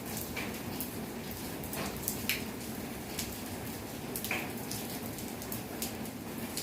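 Steady rain falling, with many individual drops pattering sharply on hard surfaces and a few louder ringing drips.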